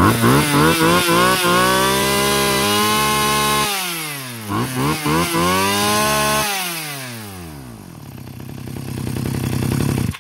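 Small petrol engine of an electric-start grass cutter being revved: several quick throttle blips, a held high rev, more blips and another hold, then the revs falling away slowly; the sound cuts off suddenly at the end.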